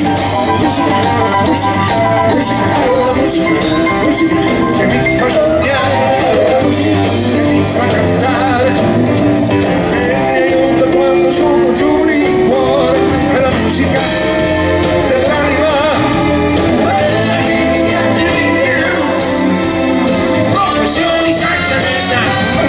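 Live blues-rock band playing: electric guitars, bass, drums and keyboards, with a male lead singer.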